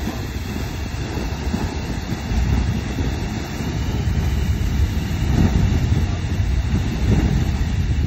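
Beehive Geyser erupting at full height: its water column rushing and hissing steadily, heaviest in the low end and swelling slightly louder as it goes.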